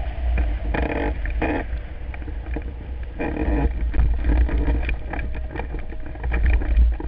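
Wind buffeting a camera mounted on a hang glider's wing in flight: a steady low rumble with scattered ticks, and short louder bursts about a second in and again a little after three seconds.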